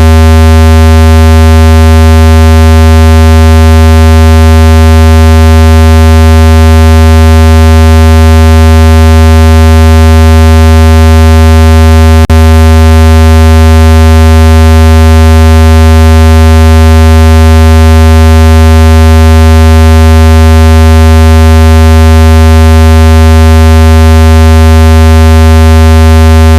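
Speaker-cleaner tone: a steady, very loud, low buzzing tone with many overtones, meant to vibrate water and dust out of a phone speaker. A single click about twelve seconds in.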